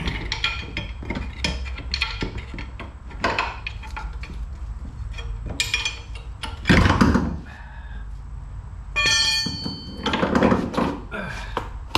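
Metal clanks, knocks and scraping as a CV drive axle is pried out with a flat pry bar, with one heavy thunk about seven seconds in and a short squeal near nine seconds.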